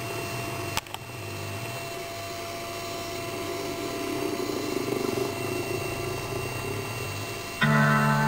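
A steady low hum with a single sharp click about a second in. Near the end, organ music starts loudly with held chords.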